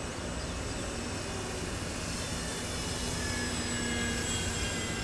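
Engine of a radio-controlled model Hawker Hurricane flying past: a steady drone that grows a little louder around three to four seconds in, then eases off.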